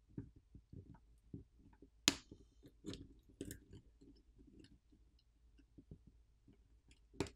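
Faint, scattered clicks and scrapes of a plastic pry pick working under the OnePlus Nord N200 5G's charging-port subboard, prying it up from the phone's frame, with a sharper click about two seconds in and another near the end.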